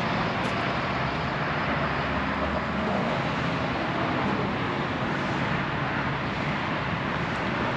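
Steady outdoor background rumble and hiss, even throughout, with no distinct events.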